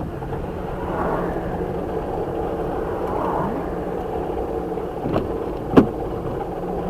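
Car driving: steady road and engine noise, with two sharp clicks about five and six seconds in, the second the loudest.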